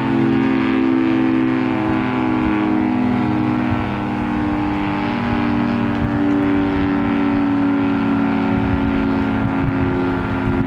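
Federal Signal 3T22 three-tone outdoor warning siren sounding its steady full-alert chord: several close, level tones held together, the loudness dipping and swelling slightly.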